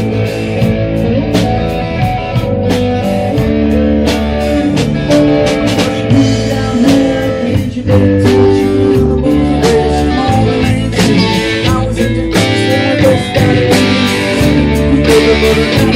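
Live band playing a blues-rock number: electric guitar and bass over a drum kit keeping a steady beat.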